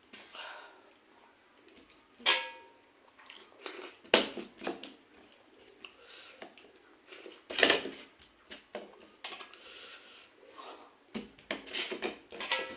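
Eating at a meal: scattered clinks and knocks of dishes and utensils, with one ringing clink about two seconds in and a quicker run of knocks near the end.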